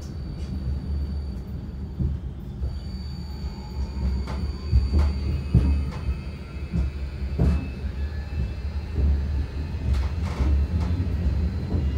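Tram running along its line: a steady low rumble of wheels on rails, broken by irregular knocks as it passes over rail joints, with a high steady whine and a fainter whine that rises in pitch in the middle as it speeds up.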